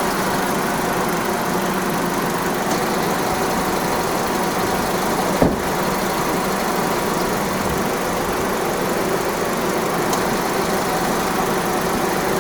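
Ford Focus engine idling steadily with the air conditioning running, as the system takes a refrigerant charge through the low-side port. A single short click about five and a half seconds in.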